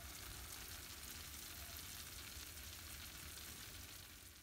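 Pizza baking in a hot oven: a faint, steady sizzling hiss over a low hum.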